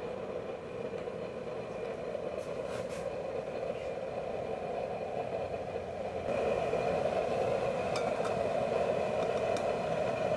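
Homemade stove burning waste cooking oil and machine oil, running with a steady roar and a faint high whine over it. The sound steps up louder about six seconds in.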